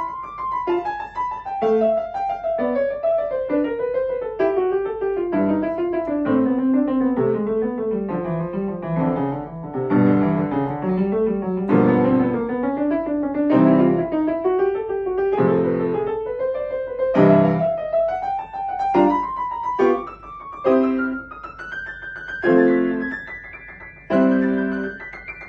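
Solo piano playing: a line of notes that steps down from high to low over about twelve seconds, then climbs back up high, punctuated by loud chords.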